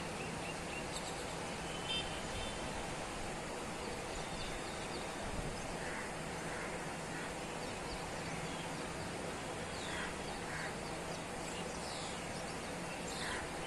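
Steady outdoor city background noise, an even hiss of distant sound, with faint bird calls every few seconds.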